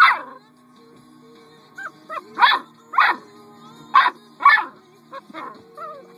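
A puppy barking: one loud bark right at the start, then a quick run of four barks from about two seconds in, with a few smaller yips near the end.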